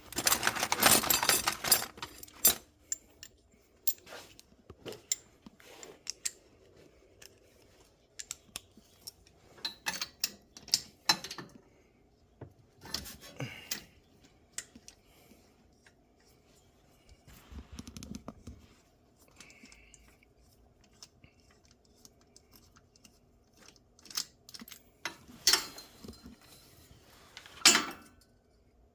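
Metal hand tools clinking and rattling, with short runs of sharp clicks from a socket extension and ratchet, as a spark plug is taken out of the engine. The clicking is densest at the start, scattered through the middle, and louder again near the end.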